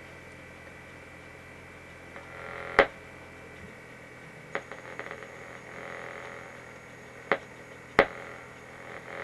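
A low steady hum that stops about three and a half seconds in, with four sharp clicks; the last click is the loudest.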